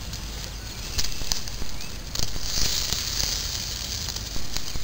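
Plum-wood grill fire crackling with scattered sharp pops, and a brief high hiss a couple of seconds in.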